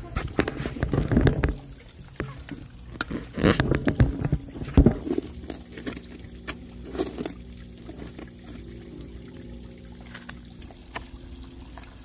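Digging in soil to plant a fern: two short bouts of scraping and scooping, the first right away and the second about three seconds in, with a few scattered clicks after. Water trickles in the background.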